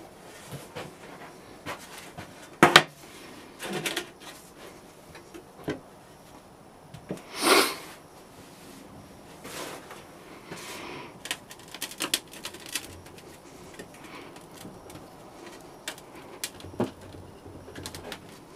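Scattered light knocks, taps and scrapes from hands handling a sand-casting flask and tools, with one louder rushing scrape about seven and a half seconds in.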